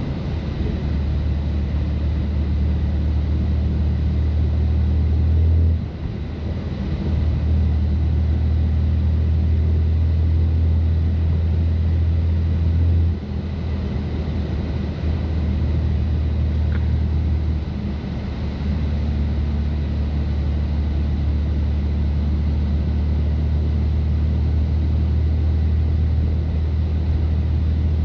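BMW F80 M3's twin-turbo inline-six, with catless downpipes and open exhaust valves, droning steadily at low revs under light throttle on snow. The drone dips briefly about six, thirteen and seventeen seconds in.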